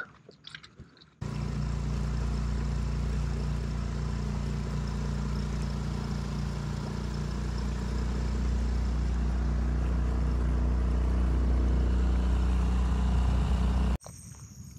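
Small gas outboard motor on a micro skiff running steadily under way, with water and wind hiss over it. It starts abruptly about a second in, grows a little louder in the second half, and cuts off abruptly near the end.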